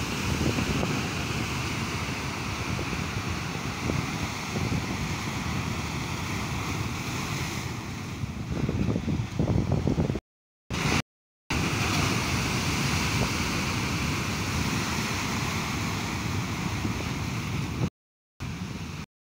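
Sea surf breaking and washing over shoreline rocks, with wind buffeting the microphone; the wash surges louder about halfway through. The sound cuts out completely for a moment four times, in the second half.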